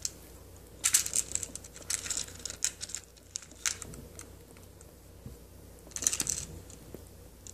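Small metal beads and charms clicking and rattling in a clear plastic compartment organizer box as they are picked through by hand, in scattered short bursts, a cluster about a second in and another around six seconds in.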